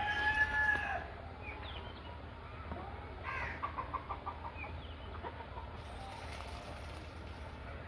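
Chickens: a rooster's crow tails off about a second in, and a few seconds later comes a quick run of about six clucks.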